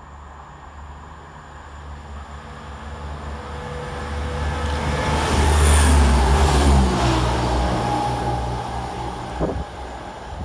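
Chiltern Railways Class 168 diesel multiple unit approaching and passing close by. Its engine drone and wheel noise build to a loud peak about six seconds in, with the pitch falling as it goes past, then fade.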